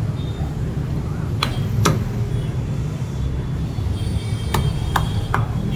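A butcher's cleaver chopping mutton ribs on a wooden log block: sharp knocks, two about a second and a half in and three close together near the end, over a steady low background rumble.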